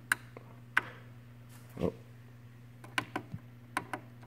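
Several sharp clicks of the front-panel push-buttons on a Supersonic SC805 boombox being pressed, irregularly spaced, with a few in quick succession near the end, over a steady low hum.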